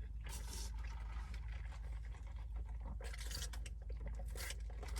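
A person chewing fast food close to the microphone, with three short crunching sounds, over a steady low hum.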